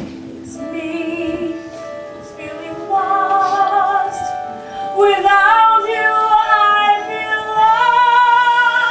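A woman singing a song in long held notes with a wavering vibrato over instrumental accompaniment, getting louder about five seconds in.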